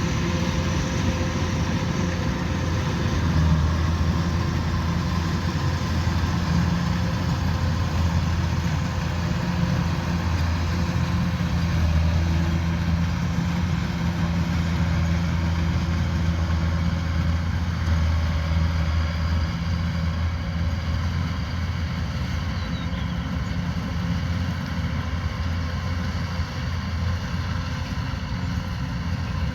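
Kubota rice combine harvester running steadily at working speed: a constant low diesel engine hum under the even whirr of its threshing machinery.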